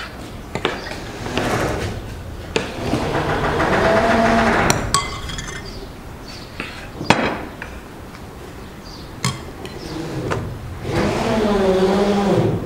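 Kitchen knife slicing a tomato on a wooden cutting board: scattered sharp knocks of the blade meeting the board. Twice, a low pitched sound like a voice runs for a second or two.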